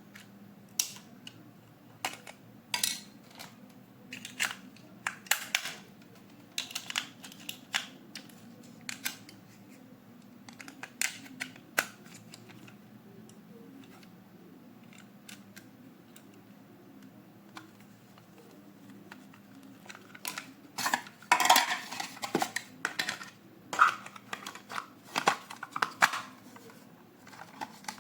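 Scattered clicks, taps and rattles of hard plastic toy parts and packaging being handled, growing busier about three quarters of the way in, over a faint steady hum.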